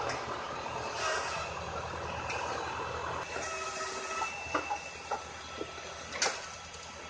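Tractor-powered firewood processor running with the tractor engine humming steadily underneath. In the second half, sharp knocks of split wood pieces dropping off the conveyor onto the pile, the loudest about six seconds in.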